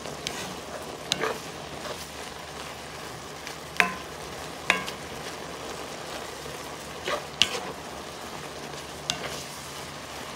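Sliced mushrooms sizzling and bubbling in butter and their own released water in a cast-iron skillet on high heat, the excess liquid being boiled off. They are stirred with a plastic spoon, with a few sharp clicks scattered through.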